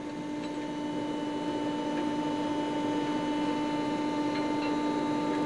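Steady electric machinery hum in a train maintenance workshop: one constant low tone with a fainter higher one over a noisy background, and a couple of faint ticks.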